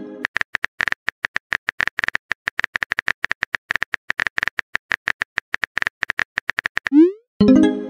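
Phone-keyboard typing sound effect: rapid, irregular clicky taps, about seven seconds long. Near the end it gives way to a short rising swoop and a loud chime-like tone, the message sent/received alert of a chat app.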